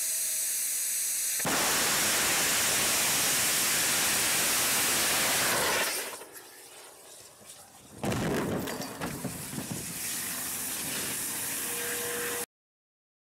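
MOMO-2 rocket's engine at lift-off: a steady hiss, then about 1.5 seconds in a louder steady rocket exhaust noise for about four seconds that then falls away. About two seconds later comes a sudden loud blast as the rocket, its thrust lost, crashes back onto the pad and explodes, followed by the uneven noise of the fire dying down until the sound cuts off near the end.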